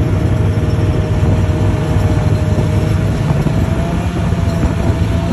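Snowmobile engine and track running steadily at trail speed, heard from on the machine, with a whine that edges up in pitch about four seconds in.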